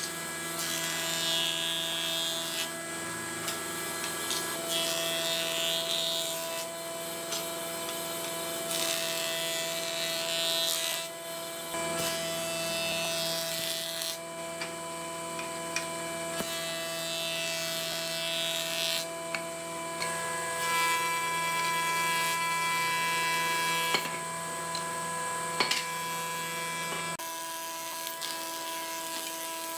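Nisino combination jointer-planer running with a steady motor and cutterhead whine. Several times the whine gives way to a louder rasping as a board is pushed over the spinning cutterhead and its face is planed off.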